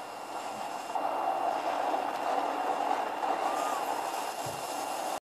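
A steady, even rushing noise from a film soundtrack, heard through a screen's speaker and recorded off it, that cuts off suddenly near the end.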